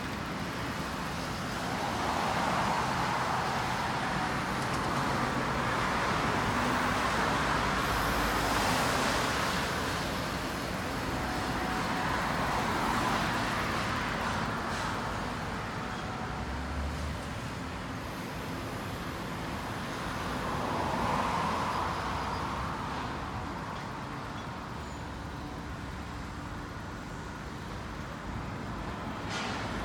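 Road traffic going by: a steady rush of tyres and engines that swells and fades as cars pass, several times over.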